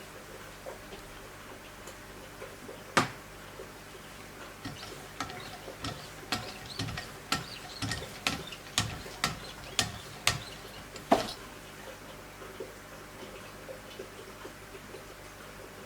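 Light clicks and taps: one sharp click about three seconds in, then a run of ticks about two a second from around five to eleven seconds, the last one the loudest.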